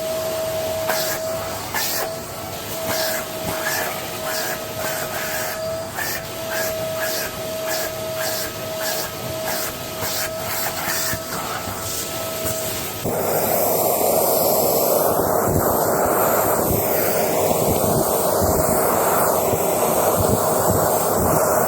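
Goblin Essentials bagless cylinder vacuum cleaner running with a steady whine, with frequent clicks over it. About thirteen seconds in, the sound abruptly turns louder and rougher, a rushing airflow with the whine still under it.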